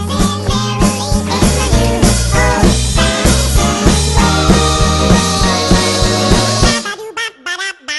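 Upbeat band music with a stepping bass line and a steady beat. Near the end the full band drops out, leaving a few short separate stabs.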